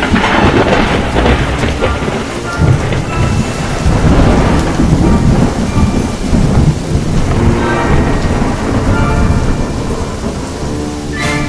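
Thunderstorm: rolling thunder rumbling in swells over steady heavy rain.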